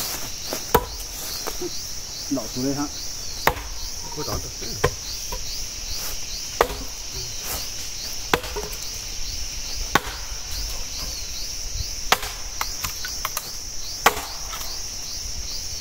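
Firewood being chopped: sharp, single chopping strikes on wood, about eight of them at roughly two-second intervals. Insects keep up a steady high-pitched buzz throughout.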